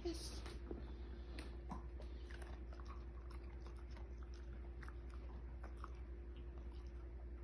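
A dog chewing: faint, irregular wet clicks and crunches, over a steady low hum.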